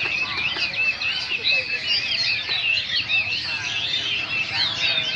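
Many caged songbirds chirping and twittering at once, a dense overlapping chorus of short high calls.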